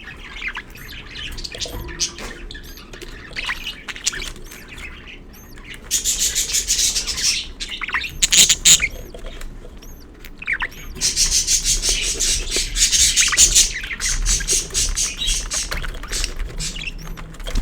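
Budgerigars chirping and chattering, with two stretches of fast, buzzy, rapid-fire calling, one about six seconds in and a longer one a few seconds later.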